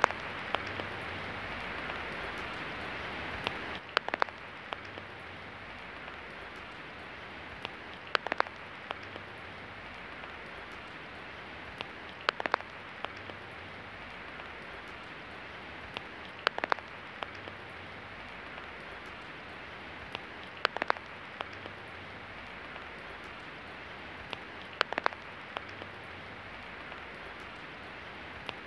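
Steady rain falling, with a cluster of sharp drip-like taps recurring about every four seconds.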